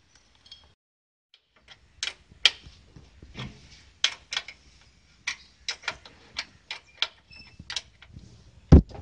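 Irregular metal clicks and clanks, about two a second, from a steel hand-controller lever linkage being handled and fitted on a three-wheeler's floor. The loudest knock comes near the end.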